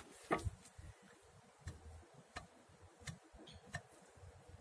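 Front suspension strut clicking as it is rocked, a short sharp knock about every two-thirds of a second, the first the loudest: excessive side play in the strut.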